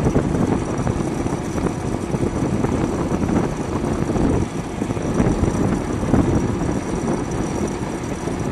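Wind buffeting the microphone of a moving motorcycle, a loud uneven rumble over the engine and road noise.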